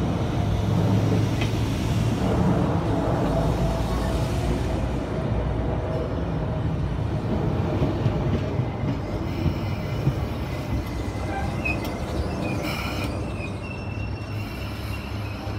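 Sydney Trains S-set double-deck electric train pulling in along the platform and slowing down, with a steady low motor hum and wheel rumble. High-pitched squeals come in the last few seconds as it brakes, along with a brief hiss.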